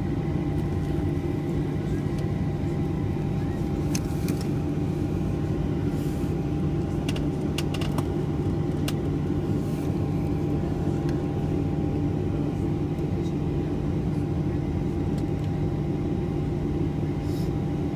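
Cabin noise of a Boeing 737-700 taxiing: the steady hum of its CFM56-7B jet engines at idle thrust, with a steady whine through it. A few light clicks and rattles fall in the middle.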